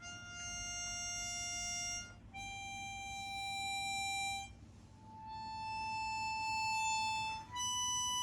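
Chromatic harmonica playing four long, steady notes in a slow rising scale, each held about two seconds with a short break before the next: a practice exercise in soft note entries and smooth note changes.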